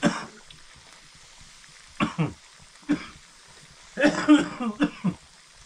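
A person coughing and clearing their throat in short separate bursts. There is one at the start, two more about a second apart, and a longer, rougher stretch about four seconds in.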